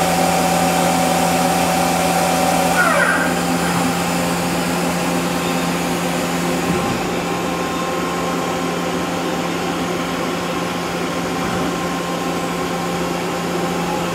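Hitachi Seiki HITEC-TURN 25G CNC lathe running with its spindle turning at high speed, between about 2,000 and 3,500 rpm, giving a steady mechanical hum and whine. A brief falling whine comes about three seconds in.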